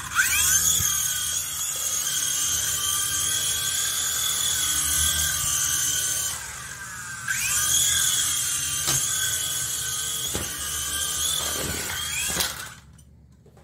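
Small 3.5-channel RC toy helicopter's electric motors and rotors whining at a high pitch, rising as they spin up for takeoff. About six seconds in the whine falls away for about a second as the throttle drops, then spins up again; a few sharp knocks follow, and the motors wind down and stop near the end.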